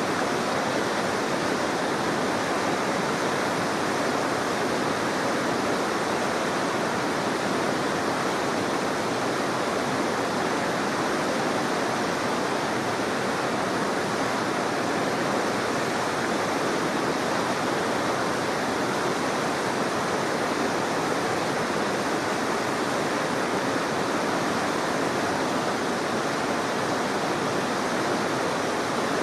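Steady rush of river water at a weir: an even roar of flowing water that stays the same throughout, with no distinct knocks or engine notes standing out.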